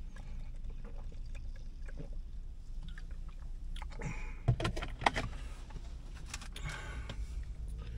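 Plastic soda bottle being handled and set down inside a car, with a short cluster of clicks and knocks about four to five seconds in, over a steady low hum.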